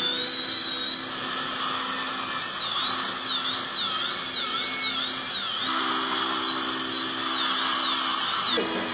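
Dental high-speed handpiece (drill) whining as the bur cuts tooth, its high pitch dipping and recovering again and again under load, with a steady low hum underneath that steps up in pitch about two-thirds of the way through.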